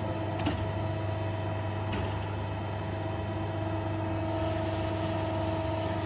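Hydraulic press brake's pump motor running steadily with a low hum and a few steady tones, with a couple of faint clicks; a higher hiss joins in about four seconds in.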